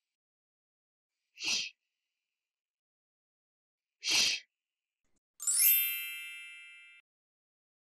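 A voice demonstrating the English 'sh' sound /ʃ/ twice, two short hushing hisses about two and a half seconds apart. Then a bright chime rings out and fades over about a second and a half.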